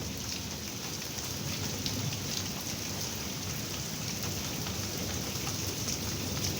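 Heavy downpour with hail: a steady rush of rain broken by many small, sharp hits of hailstones striking surfaces.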